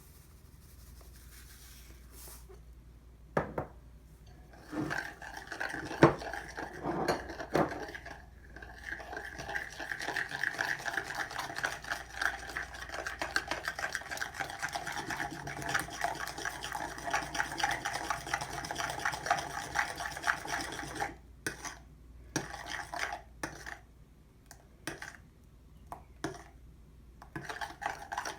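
A utensil stirring and scraping batter in a bowl, with a few knocks against the bowl first and then a long run of rapid, even mixing strokes that breaks off into short bursts near the end.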